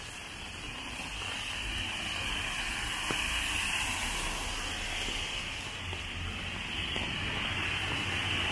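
Steady rain falling on wet pavement, an even hiss that grows slowly louder.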